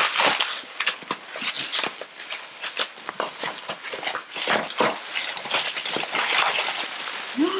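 Bubble wrap and plastic wrapping rustling and crackling as it is handled and pulled off a chair seat: a steady run of irregular crinkles.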